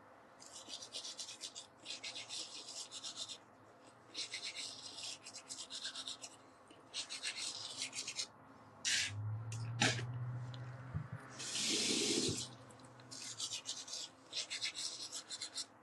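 Teeth being brushed with a toothbrush: quick scrubbing strokes in bursts of a second or so with short pauses, plus a brief low hum about nine seconds in.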